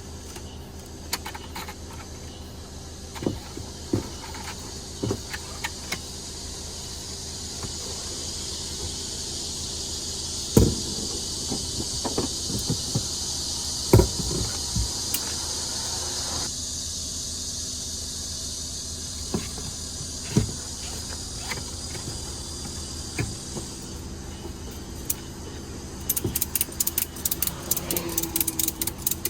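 Knocks and handling sounds of bed-platform parts being fitted, over a steady low hum. A hiss sets in partway through and stops about three-quarters of the way in, and a quick run of clicks follows near the end.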